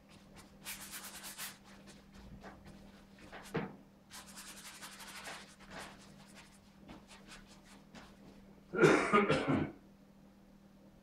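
Paintbrush bristles scrubbing paint onto a stretched canvas in quick, scratchy back-and-forth strokes, with a single knock midway. Near the end comes a louder, fuller burst of noise lasting about a second.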